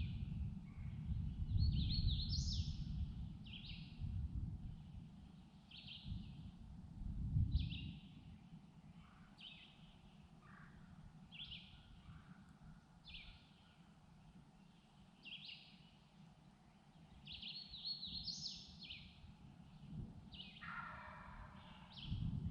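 A songbird singing short, high phrases every second or two, with a couple of longer, more complex songs. A low outdoor rumble runs under it, strongest in the first several seconds.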